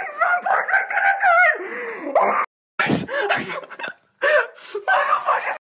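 A young man gasping and crying out in alarm without clear words. Several short takes cut off abruptly.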